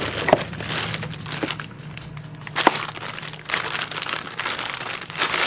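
Rummaging through a cardboard box of parts and trash: paper and plastic crinkling with scattered clicks and knocks.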